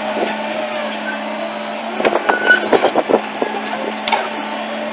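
Diesel engine of a 1994 Hyundai Robex 200 LC excavator running steadily. About two seconds in there is a brief irregular run of knocks and clanks lasting about a second, and another single knock near the end.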